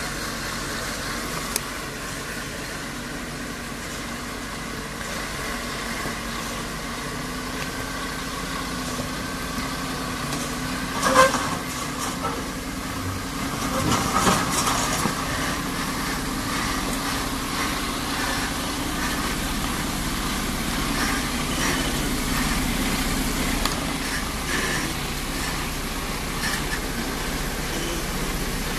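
A loaded Mercedes-Benz Arocs timber truck drives slowly past, its diesel engine running steadily. A sharp knock about eleven seconds in is the loudest moment, and a louder, busier stretch follows around fourteen seconds.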